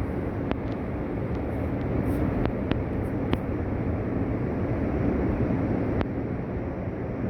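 Heavy winter sea surf rumbling and crashing in a continuous low roar, with a few sharp clicks scattered through it.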